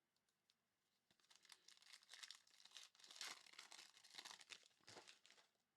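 A trading-card pack wrapper being torn open and crinkled by hand, starting about a second in and stopping just before the end.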